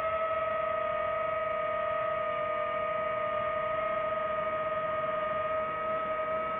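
DJI FPV drone's propellers whining at a steady pitch, the tone wavering slightly near the end.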